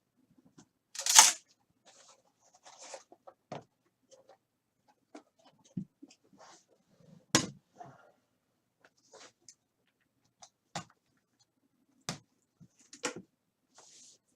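Trading-card packaging and cards being handled on a table: a short tearing rustle about a second in, then scattered sharp clicks and taps.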